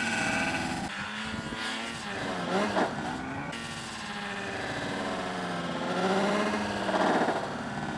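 Two-stroke snowmobile engines revving high as the sleds take off and land, their pitch climbing and falling several times.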